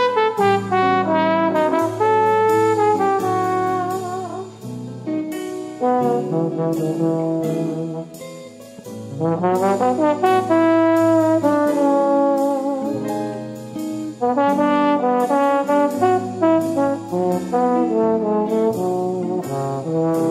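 Background music: an instrumental jazz-style tune with brass playing the melody, its notes stepping and sliding over a bass line.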